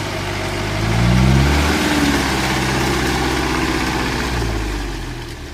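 4x4's engine revving briefly about a second in, then running steadily and fading away near the end.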